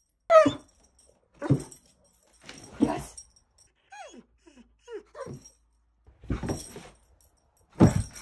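Greyhound whining and yipping in a series of short cries, several falling in pitch, about one a second, with a louder burst near the end: an excited demand to go for a walk.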